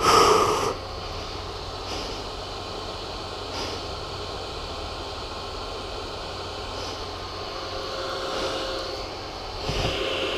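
Single-cylinder engine of a KTM 690 Enduro R idling steadily while the bike stands still. There is a brief loud burst at the very start and a slight swell near the end.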